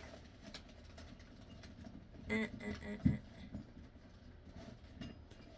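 Faint handling noises of objects being moved about, small knocks and rustles, with one dull thump about three seconds in and a brief vocal sound just before it.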